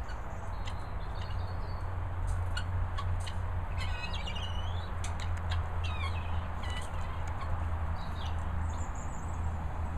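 Guinea fowl chirping: a run of short, high chirps, several falling in pitch, starting about two seconds in, over a steady low rumble.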